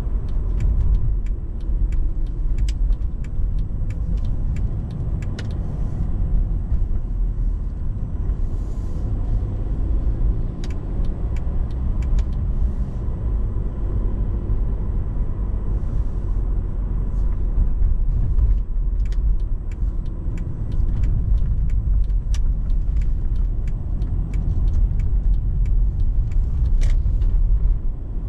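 Mercedes-Benz C220 CDI on the move: a steady low rumble of road and tyre noise, dotted with frequent small irregular clicks and ticks.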